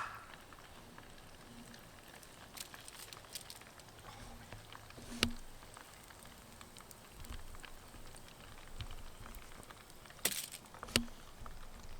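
Pierogies deep-frying in hot oil over a campfire: a faint steady sizzle with scattered sharp pops and crackles, the loudest about five seconds in and a few more together near the end.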